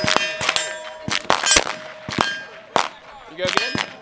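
A string of gunshots at irregular intervals, several a second at first and then spacing out, with steel targets ringing with a sustained clang after hits.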